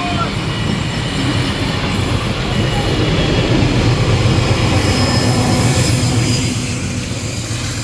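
A heritage train rolling past, its wheels rumbling on the rails. The sound grows louder toward the middle and eases off near the end.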